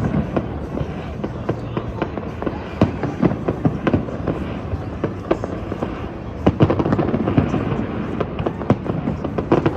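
Fireworks going off in a rapid string of sharp bangs and crackles over a steady rumble, getting denser and louder about six and a half seconds in.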